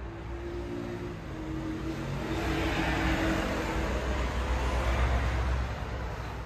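Engine noise of a passing vehicle, swelling to a peak about three to five seconds in and then fading, over a steady low rumble.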